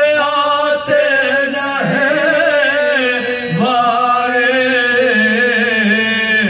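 Male voice chanting soz, an Urdu elegy of Shia mourning, in long held notes with vibrato and slides between pitches.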